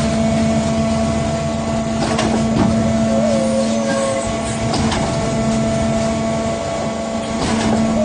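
Concrete mixer with pump running: a steady mechanical hum with a low rumble, broken by a sharp knock about every two and a half to three seconds and a brief squeal.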